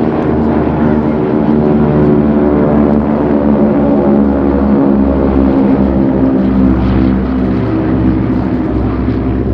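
Pratt & Whitney Wasp Junior radial piston engines of a Beech 18 and two Spartan Executives droning in a formation flypast: a loud, steady propeller-aircraft drone with strong low engine tones.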